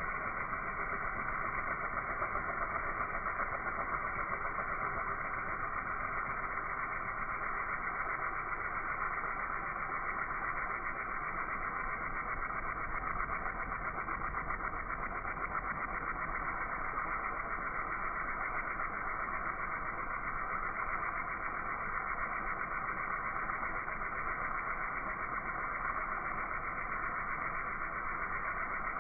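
Pressure washer engine running steadily under constant load, an even mechanical drone with no change in speed.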